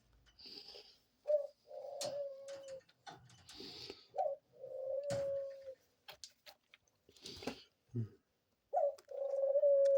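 Pet dove cooing at its nest: three coos, each a short rising note followed by a long, steady lower note.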